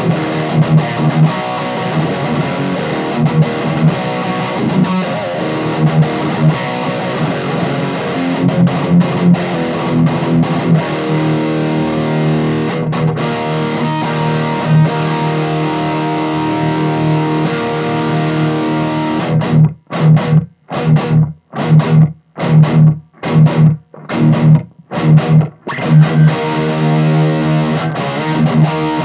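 Distorted electric guitar riffs from a 1995 Fender USA Stratocaster's Seymour Duncan Distortion bridge pickup, played straight into a Mesa Boogie Badlander 25 head with the gain high and no effects, through a closed-back Mesa cabinet. Held, ringing chords for most of the time, then a run of short, stopped chords nearly two a second with silence between, before held chords return near the end.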